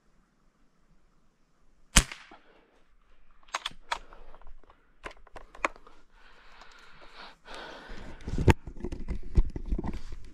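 A single shot from a Umarex Gauntlet 5.5 mm PCP air rifle about two seconds in: a sharp, short crack. Several smaller clicks follow, then rustling and thumps of handling and movement through brush.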